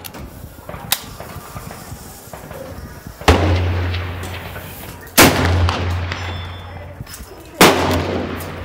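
Three loud rifle shots about two seconds apart, each followed by a long echo. A sharp click comes about a second in.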